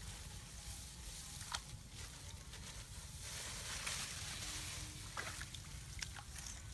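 Hands sloshing in shallow muddy water among rice plants, with three short, sharp splashes, over a steady low rumble.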